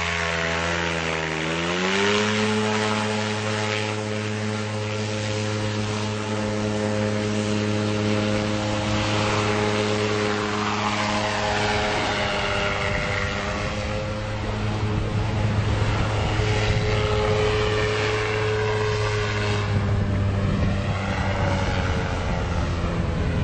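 Engine and propeller of a motorised hang-glider boat, revving up about two seconds in and then running steadily at high power.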